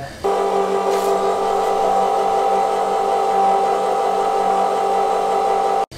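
FASS electric fuel lift pump on a Duramax diesel running with a loud, steady whine; the sound cuts off abruptly near the end.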